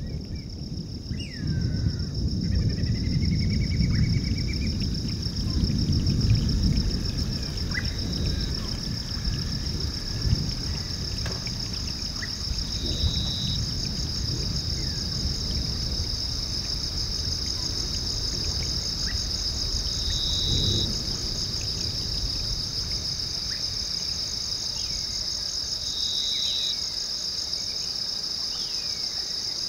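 A steady, high-pitched chorus of insects, likely crickets, chirring without pause. A second, lower trill swells in briefly three times in the second half. In the first few seconds there are a few short bird calls over a low rumbling noise that eases off after about seven seconds.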